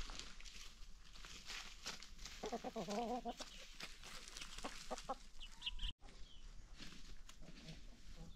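Chickens clucking, with one drawn-out warbling call about two and a half seconds in, among many small clicks and taps.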